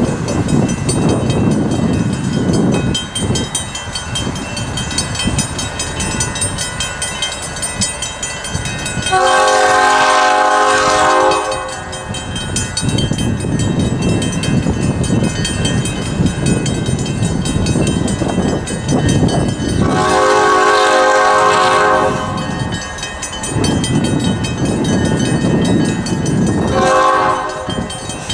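Diesel locomotive 1760 rumbling as it approaches, sounding its multi-note horn twice in long blasts of about two seconds each, about ten seconds apart, then once short near the end: the opening of the long-long-short-long grade crossing signal.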